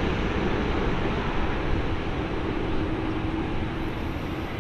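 Jet noise from a Boeing 777-300ER's two GE90-115B turbofans at low thrust through the flare and touchdown: a steady rush with a faint low hum, easing slightly toward the end.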